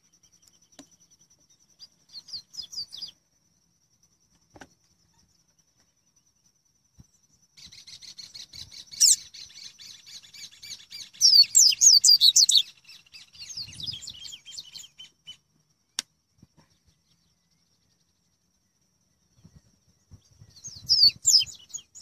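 Double-collared seedeater (coleiro) singing: fast, high-pitched twittering phrases, a short one about two seconds in, a long run of several seconds through the middle that peaks in loudness, and another near the end. A single sharp click falls in the quiet stretch after the long run.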